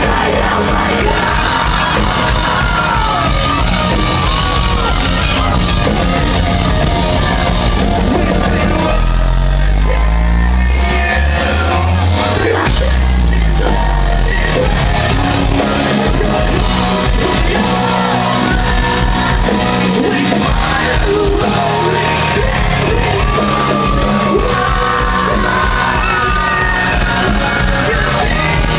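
Rock band playing live in a large hall, with electric guitars, drums and shouted, sung vocals. About nine seconds in, a heavy low bass passage comes in for some six seconds before the full band carries on.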